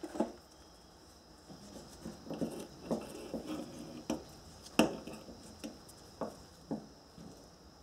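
Light irregular clicks and taps as automotive oxygen sensors and their wire leads are handled and set down on a wooden workbench, with one sharper click a little before the five-second mark.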